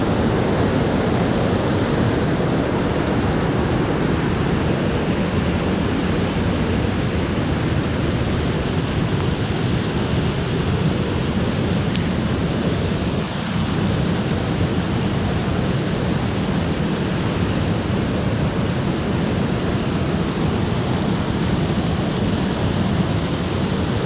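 Mountain waterfall running full after rain: a steady, unbroken rush of falling water.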